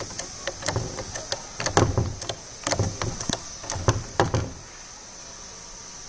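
Hydraulic bottle jack of a hose crimping press being pumped by hand: a clunk with clicks on each handle stroke, about one stroke a second, driving the crimping die closed. The pumping stops about four and a half seconds in.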